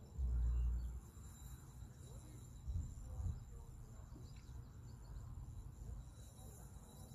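Wind rumbling on the microphone, loudest in the first second and again about three seconds in, over a faint, steady, high-pitched insect drone.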